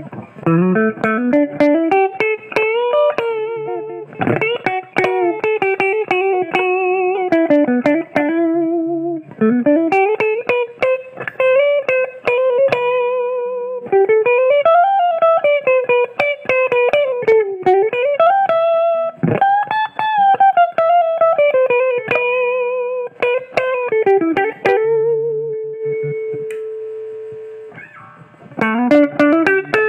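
Maison Les Paul electric guitar played through a Marshall MG15 amplifier: a single-note lead melody with slides up and down between notes and vibrato on the held notes. One long note fades out near the end before playing resumes.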